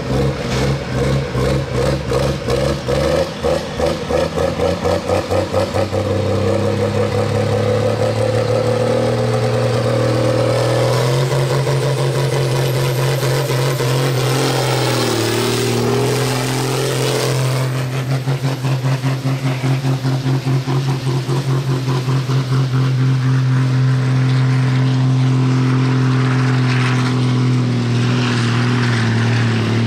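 Farm tractor's diesel engine pulling hard under full load against a weight-transfer sled. It throbs at first, then revs climb, dip briefly about halfway through, and hold steady and high.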